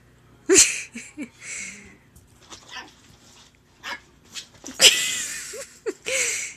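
Yorkshire Terrier puppy giving several short, high yips and barks, the loudest about five seconds in.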